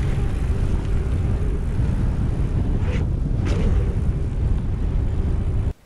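Wind rushing and buffeting over the microphone while riding a mountain bike, a steady low rumble that cuts off suddenly near the end.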